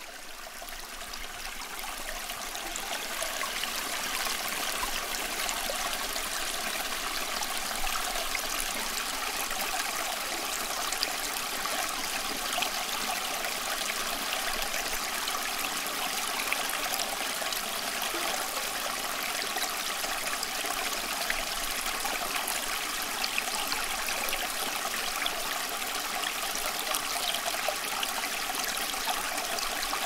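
Steady rushing of falling and running water from a small waterfall and its stream, fading in over the first few seconds.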